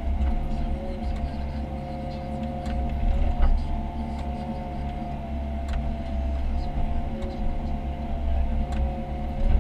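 Komatsu PC138US excavator's diesel engine running steadily under load, with a steady hydraulic whine wavering slightly in pitch, and a few brief clunks, the loudest about three and a half seconds in.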